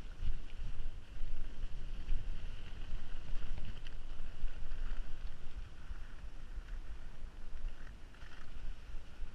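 Wind buffeting the microphone of a camera on a skier moving downhill, with the steady hiss and scrape of skis running over groomed snow.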